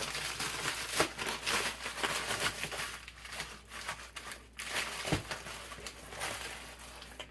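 Packaging crinkling and rustling as a parcel is handled and unpacked, busiest in the first few seconds, with scattered clicks and a dull thump about five seconds in.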